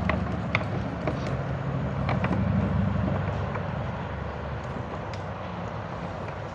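A motor vehicle's engine rumbling steadily, easing off a little after about three seconds, with a few light clicks over it.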